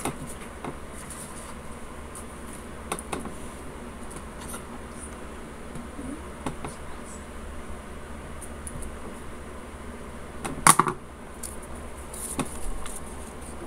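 Steady low room hum with faint small handling ticks; about three-quarters of the way through, one sharp clack as a pair of scissors lands on the desk.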